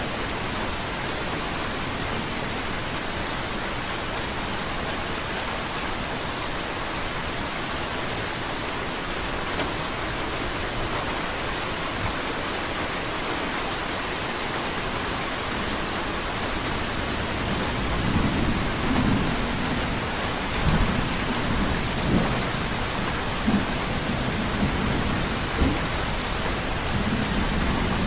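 Steady rainfall, an even hiss. From about two-thirds of the way in, a low rumbling joins it and the level rises a little in uneven swells.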